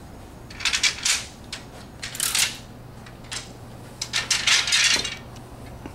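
Wooden dowels clattering against one another as a bundle is handled and laid out, in three short bursts of quick knocks.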